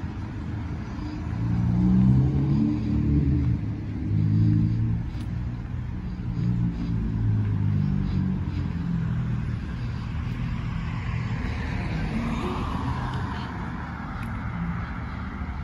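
Road traffic on a multi-lane road: a low rumble of passing cars, loudest about two and four seconds in, then near the end one car's tyre noise swells and fades as it passes close by.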